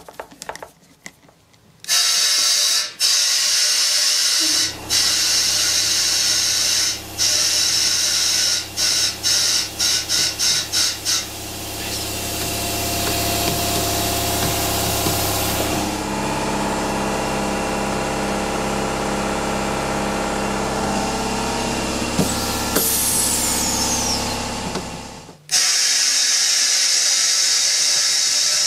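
Air compressor motor running with a steady hum from about five seconds in until it cuts out near the end, while compressed air hisses from an air inflator gun into a welded polyethylene water tank, pressurising it for a leak test. The hiss comes in a run of short bursts for a few seconds, then flows steadily and carries on after the compressor stops.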